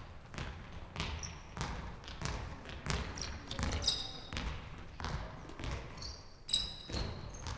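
A handball being dribbled on a sports-hall floor, bouncing in a steady rhythm about every half second or so. Two short, high squeaks come through, once near the middle and once about two-thirds through.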